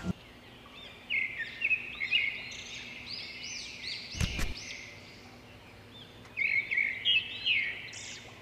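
Small songbirds chirping in two spells of quick, repeated twittering phrases, with one sharp knock about four seconds in.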